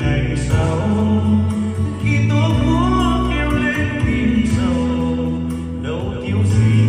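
A Vietnamese song with a lead vocal gliding over heavy, sustained bass notes, played back for a loudspeaker test.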